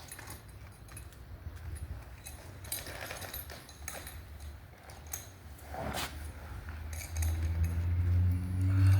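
A tree giving way: scattered sharp cracks and snaps of splitting wood, one loud crack about six seconds in, then a loud low groan from about seven seconds in as the trunk goes over.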